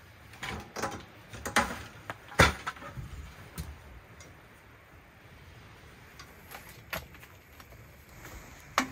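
A folding metal camp table being unfolded and set up: a string of metal clanks and clicks, the loudest about two and a half seconds in. A few scattered knocks follow as a folding camp chair is opened near the end.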